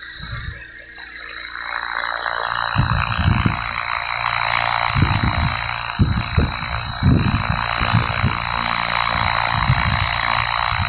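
Electric 500-size RC helicopter with a UH-1H scale body, running on a newly replaced main shaft bearing: a steady high motor whine, with the rotor's whooshing noise swelling from about a second and a half in and irregular low thumps.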